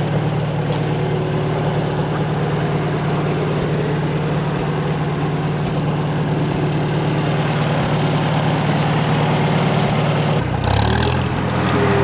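Farmall M tractor's four-cylinder gasoline engine idling steadily in the cold, with its carburetor icing up a little. About ten and a half seconds in, the engine note briefly dips and shifts along with a short rustling burst, then settles back into a steady idle.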